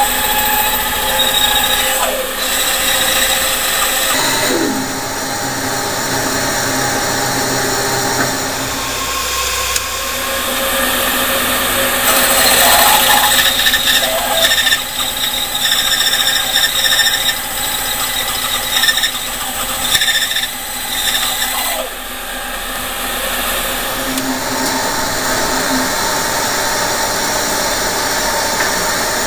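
Power tool running and working wood, in several stretches that change in sound every few seconds.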